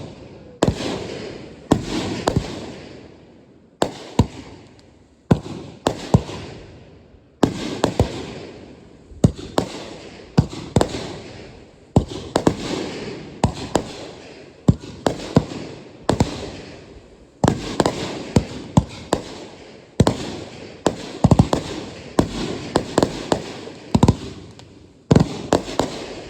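Consumer aerial fireworks going off one after another, about one sharp bang every second or so, each followed by a fading tail; some come in quick pairs.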